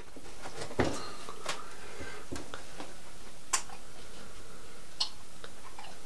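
A few sparse light knocks and clicks, about five spread over several seconds, as a heavy rock sculpture with cut-tin puffin figures is handled and set on a small table.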